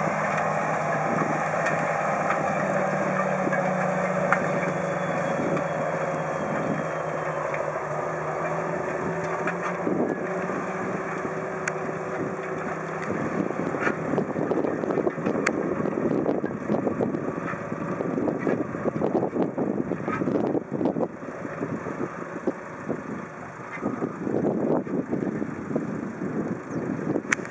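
John Deere 8430 tractor's six-cylinder diesel engine running steadily under load while pulling a disc cultivator through stubble. About halfway through the engine hum fades and irregular gusts of wind buffet the microphone.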